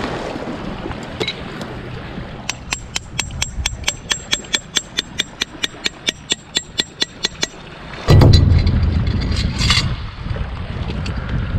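Spinning reel wound in steadily, its mechanism giving a rapid even clicking of about five clicks a second for about five seconds. About eight seconds in, a loud gust of wind buffets the microphone.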